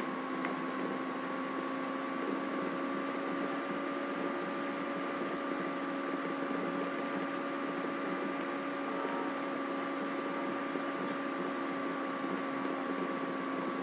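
Steady electrical-sounding hum with hiss: a constant tone with evenly spaced overtones, unchanging throughout.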